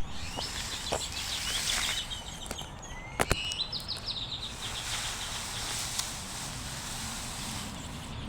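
A bird chirping in two rapid, high trills with a short rising note between them, over steady background noise, with two sharp clicks, the first right at the start and the louder about three seconds in.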